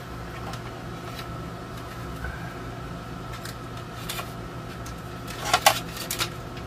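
Steady hum of a room air conditioner, with a few faint clicks and a short clatter of plastic knocks about five and a half seconds in, as a radio's plastic back cover is moved and set aside.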